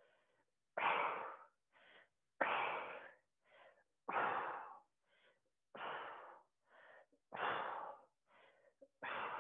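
A woman breathing hard while straining through a side-plank leg-lift exercise: a strong exhale about every second and a half, each followed by a shorter, fainter inhale.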